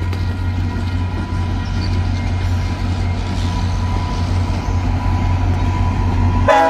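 VIA Rail passenger train led by diesel locomotive 6443 rolling past with a steady low rumble and a thin, steady high whine. Near the end, a loud blast of the locomotive's horn begins.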